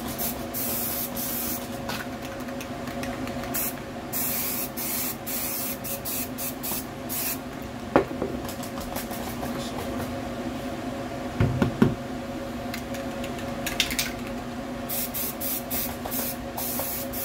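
Aerosol can of Zinsser B-I-N shellac-based primer spraying in short hissing bursts, a light second coat going onto MDF edges. A steady hum runs underneath, with a couple of knocks about eight and twelve seconds in.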